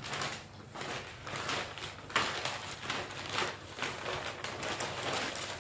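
Irregular rustling and crinkling of packaging being handled and opened by hand.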